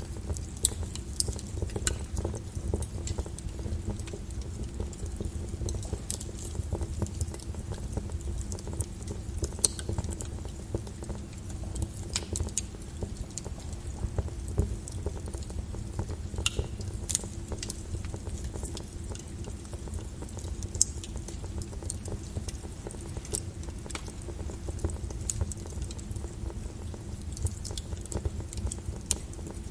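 Wood fire crackling, with irregular sharp pops over a low steady rumble, layered with rain patter.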